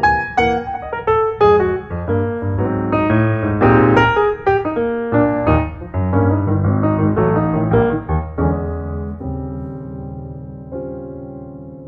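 Piano music: a quick run of notes, then a final chord struck about eight seconds in that rings on and slowly fades.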